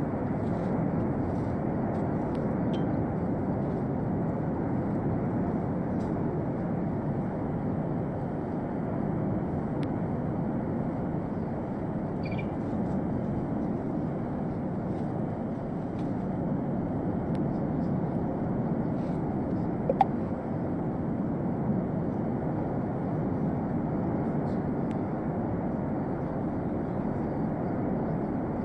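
Volcanic fissure vent fountaining lava, giving a steady, deep rushing noise without pause. A single sharp crack stands out about twenty seconds in.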